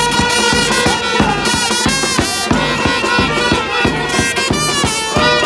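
Street brass band playing: trumpets hold long notes over a steady beat of bass drum and snare drum.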